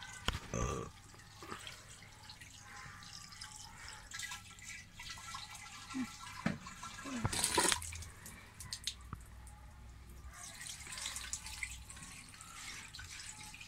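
Water dripping and splashing as boiled instant noodles are drained: water runs off a metal pot and the noodles are tipped into a plastic colander, with one louder rush of water about seven seconds in.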